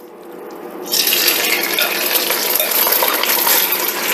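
Bite-sized chicken pieces going into hot vegetable oil in a Dutch oven and sizzling. The sizzle starts suddenly about a second in and then holds steady.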